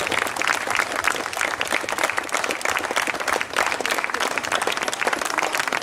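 Crowd of guests applauding, many hands clapping steadily.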